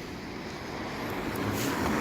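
A passing vehicle's noise, a rushing sound with a low rumble that grows steadily louder.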